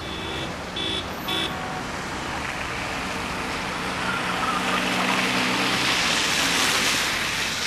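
Car horn of a Toyota RAV4 sounding in a few short toots during the first second and a half, then the car driving close by, its engine and tyre noise steadily growing louder.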